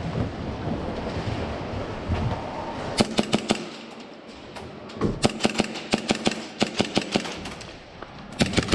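Airsoft guns firing in quick strings of sharp shots: about four around three seconds in, about a dozen from about five to seven seconds, and two or three more near the end.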